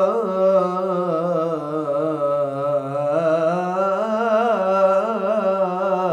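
A man singing an unaccompanied devotional supplication (ibtihal): one long melismatic held vowel, richly ornamented with a wavering line. The pitch sinks lower through the middle and rises back again.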